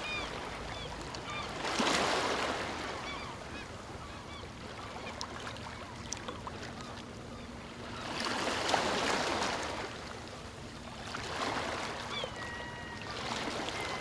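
Small ocean waves breaking and washing up onto a sand beach, swelling and falling in slow surges, with several larger washes. Birds call briefly over the surf.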